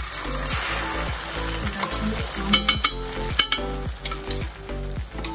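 Beaten egg with chopped onion and green chilli sizzling loudly in hot oil on a tawa, freshly poured and spreading, the hiss strongest in the first couple of seconds, with a few sharp crackles near the middle. Background music plays underneath.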